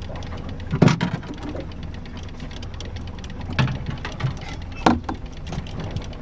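Steady low hum of a boat's motor under rapid mechanical ticking, with three louder knocks of gear on the boat: about a second in, at about three and a half seconds and near five seconds.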